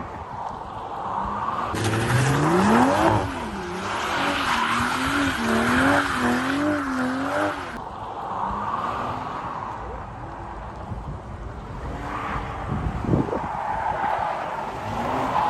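A sports car drifting: the engine revs climb steeply about two seconds in, then the pitch rises and falls repeatedly as the tyres skid and squeal. This cuts off suddenly partway through, and quieter engine running follows, with the revs rising again near the end.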